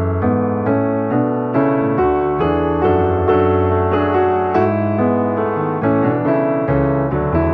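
Background piano music: a melody of struck notes, two or three a second, over held low bass notes.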